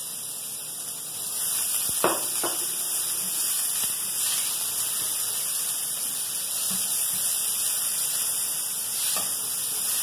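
Garlic and chopped onion sizzling in olive oil in a stainless steel frying pan: a steady hiss that grows louder about a second in, with a few light knocks as the food is stirred.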